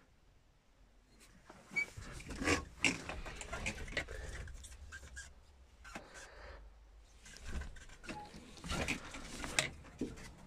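Irregular rustling, rubbing and light knocks and clicks, with an uneven low rumble from about two seconds in: the sound of someone handling a camera while moving about in a tractor cab. Two busier stretches, one about two to four seconds in and another near the end.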